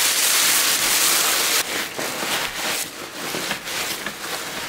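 A thin plastic nylofume liner bag crinkling loudly as it is shaken open into a backpack, for about a second and a half. Then softer, uneven rustling as a down quilt and the pack's fabric are stuffed in.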